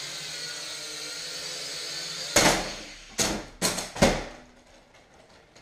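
Small toy quadcopter's propellers whining steadily in flight. About two seconds in, a loud crash, then three more knocks over the next second and a half as it comes down, after which the whine is gone.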